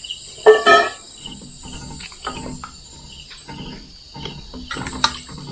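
Crickets chirping steadily. Under a second in come two loud metallic clanks from a metal pot being handled, then soft knife strokes, about two or three a second, as a long green gourd is peeled.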